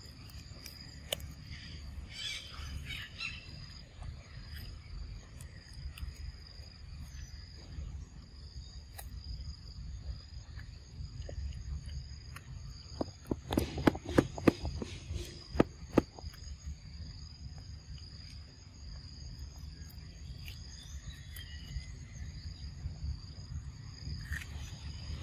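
Young macaque biting and chewing a green mango, with a run of sharp crunching clicks in the middle. Under it run a steady high insect drone and a low rumble.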